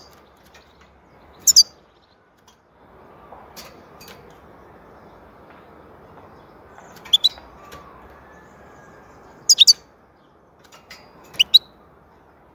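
European goldfinch giving short, high-pitched calls, mostly in quick pairs, four times with pauses of a few seconds between.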